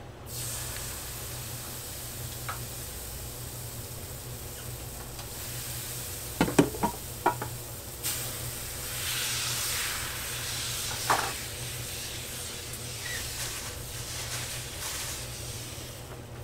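Crepe batter sizzling with a steady hiss on a hot griddle. A quick cluster of sharp clicks comes a little before halfway, and one more about two-thirds through.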